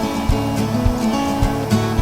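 Background pop song between vocal lines: strummed acoustic guitar over a steady beat.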